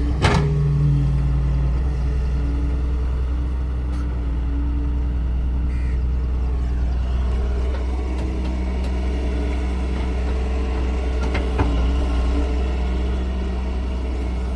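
Excavator's diesel engine running steadily with a deep drone and a higher whine that comes and goes, as when the machine works under load. A sharp clank comes just after the start.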